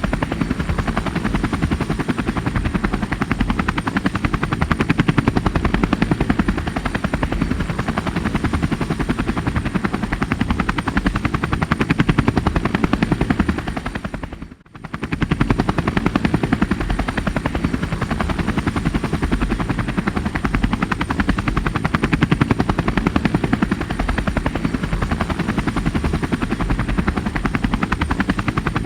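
Helicopter rotor and engine sound, a fast steady blade chop with heavy low-end thump, laid onto the footage in editing. It fades down almost to nothing and straight back up about halfway through.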